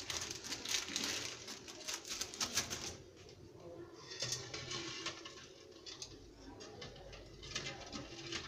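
Eggs being set into a pot of water to boil, with light clicks and taps as they knock against the pot and each other, thickest in the first three seconds and sparser after.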